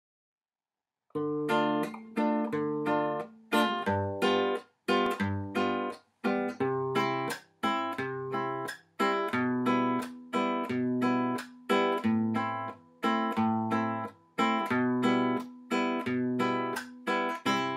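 Background music of chords strummed on a plucked string instrument, about two strokes a second, beginning about a second in; each chord rings and dies away.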